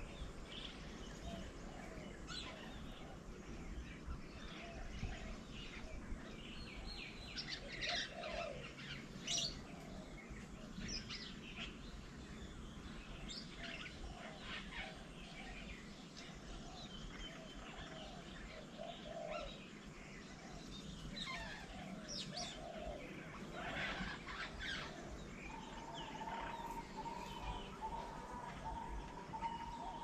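Assorted wild birds chirping and calling, many short calls overlapping, over a steady outdoor background noise. From about 26 seconds in, a steady, slightly broken tone joins in.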